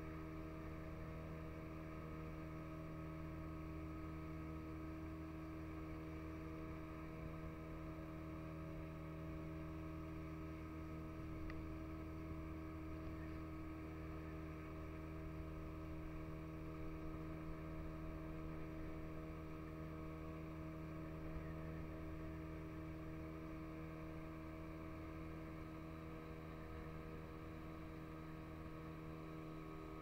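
Boat engine running steadily under way, an even drone that holds the same pitch throughout.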